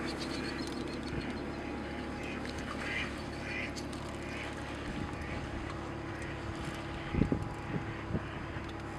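Ducks quacking a few times over the steady hum of a passing boat's engine, with a few low knocks near the end.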